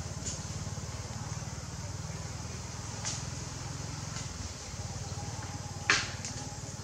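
Steady low mechanical hum with an even, rapid pulse. It is broken by a faint click about three seconds in and a sharp, loud click about six seconds in.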